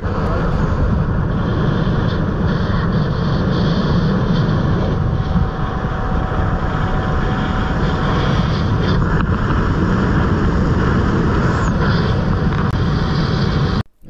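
Motorboat running at speed across open water: steady engine and wind noise, cutting off suddenly near the end.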